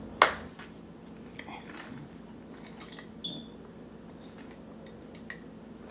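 A single sharp hand clap just after the start, then faint mouth sounds and light clicks of drinking from a large plastic tumbler.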